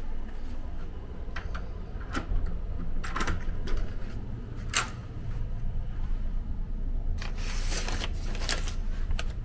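Door latch and lever handle clicking several times as a hotel room door is unlatched and opened, then a paper bag rustling as it is picked up near the end.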